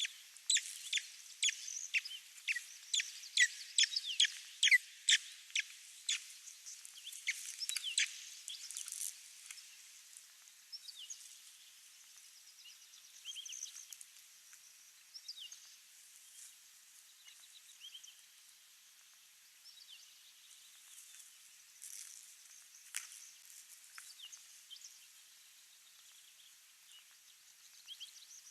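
Small birds chirping: a quick run of loud, sharp chirps, two or three a second, for the first eight or nine seconds, then fainter scattered chirps.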